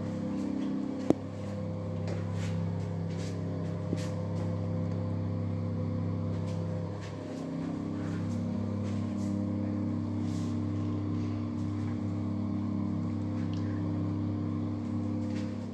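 A steady low mechanical drone, like a motor or engine running, that dips briefly about seven seconds in and then resumes. A sharp click comes about a second in.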